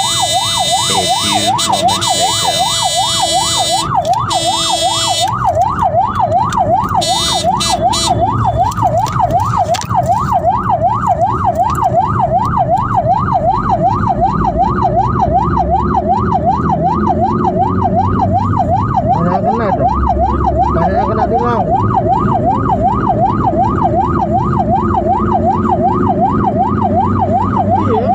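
Emergency siren sounding in a fast yelp, its pitch sweeping up and down about two to three times a second without a break, over the low rumble of the vehicles. For the first five seconds a shrill, many-toned sound rides on top of it.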